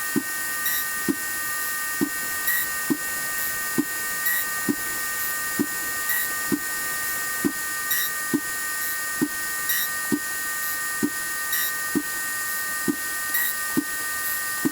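Haas CNC mill running a key seat cutter, cutting notches into iron round stock. A steady high whine carries throughout, with a short low knock about once a second.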